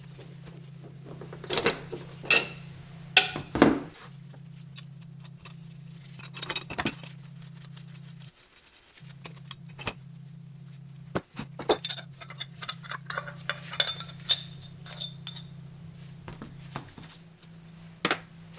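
Steel hub parts and bearings clinking and knocking together as the hub is taken apart. There are a few sharp metallic knocks in the first four seconds, a run of lighter clinks and rattles from about eleven to sixteen seconds, and one more knock near the end.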